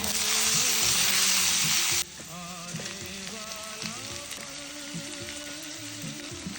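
Sabzi frying in hot oil in a pan: a loud sizzle for about two seconds that cuts off suddenly, followed by a softer, steady sizzle.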